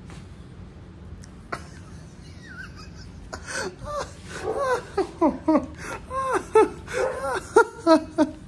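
Hard laughter, starting about three seconds in as a run of short bursts that grow louder toward the end.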